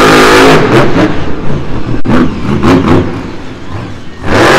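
Monster truck engine revving in repeated bursts, its pitch rising and falling, with a sharp knock about two seconds in and a loud surge of revs near the end.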